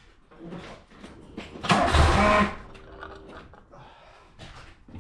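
Mk2 VW Polo GT's starter motor cranking the engine for about a second, about two seconds in, with the fuel line disconnected; the engine does not run. A faint steady whine follows briefly.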